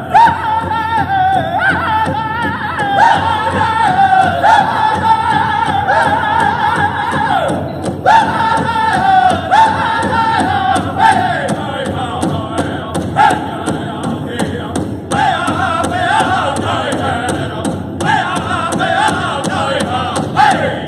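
Powwow drum group singing a jingle dress dance song: voices in high-pitched unison over a steady beat on a big drum, with short breaks between sung phrases.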